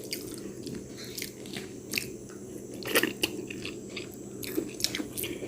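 A person chewing and biting food close to the microphone: irregular soft clicks and crunches over a low steady hum.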